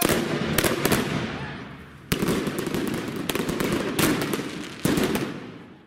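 Fireworks going off from a ground battery: about six sharp bangs in five seconds, irregularly spaced, each dying away over about a second.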